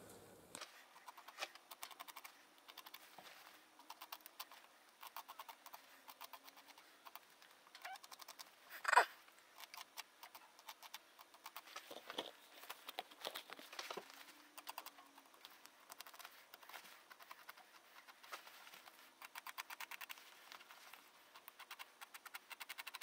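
Faint, irregular small clicks and ticks of gloved hands and a small knife working the skin of an animal's ear while the ear is being turned. There is one louder knock about nine seconds in.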